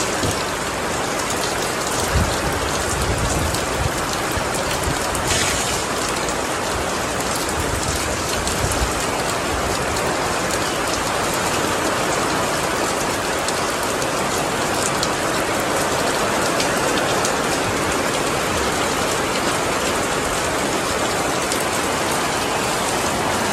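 Heavy squall rain pouring down steadily, heard from under a tarp awning, with the scattered ticks of close drops.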